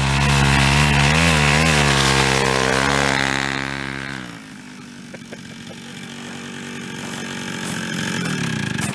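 Late-1970s Chrysler Sno-Runner's small single-cylinder two-stroke engine running under load as it is ridden through snow, its pitch wavering with the throttle. About four seconds in the sound drops away sharply, then the engine is heard again, rising in pitch and growing louder toward the end.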